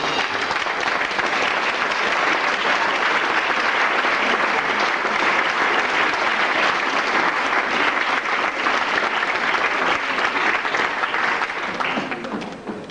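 Audience applauding steadily after the dance music stops, the clapping dying away near the end.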